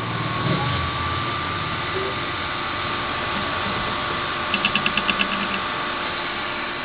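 Teneth cutting plotter running as it works a contour cut with its red-dot registration sensor: a steady motor whine over mechanical hum, with a quick, even run of about eight ticks a little past the middle.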